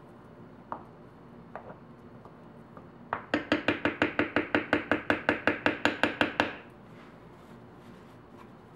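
A rapid, even run of about twenty sharp taps, six or seven a second, for about three seconds: a small swirling utensil knocked against the wooden soap loaf mold, shaking off soap batter. A few faint clicks come before it.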